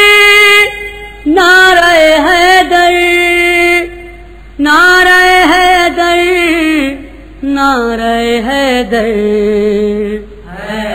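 A male reciter chanting a Shia noha without instruments, in long held, ornamented phrases broken by short pauses for breath; the later phrases sit lower in pitch.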